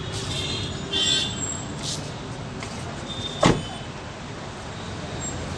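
Steady background road traffic noise, with a few short high squeaks in the first second and a half and one sharp knock about three and a half seconds in.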